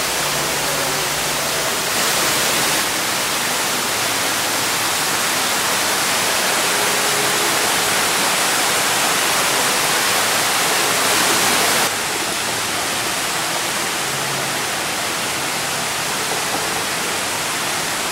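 Steady rush of garden waterfalls cascading over rocks into pools. It swells toward about twelve seconds in, then drops abruptly.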